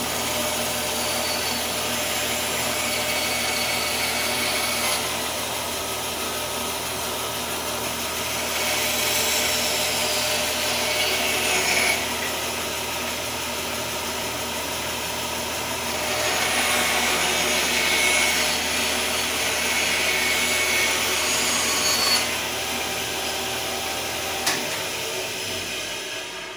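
Bandsaw running, with two louder stretches of a few seconds each as it cuts through wood. Near the end the motor is switched off and the noise dies away.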